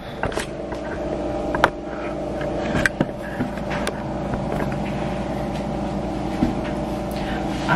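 Steady machine hum with several held tones, as from a running household appliance, with a few sharp clicks and knocks from the camera being handled.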